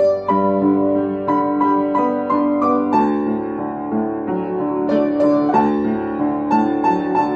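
Solo piano playing an improvised, unhurried melody in single notes over sustained chords in the lower register.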